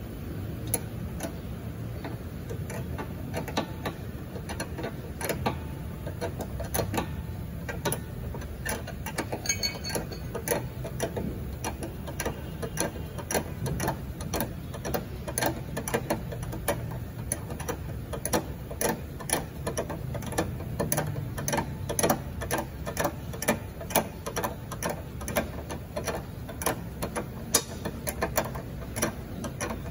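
Ratcheting wrench clicking in quick runs of ticks as a nut on a car's front suspension arm is turned, over a steady low hum.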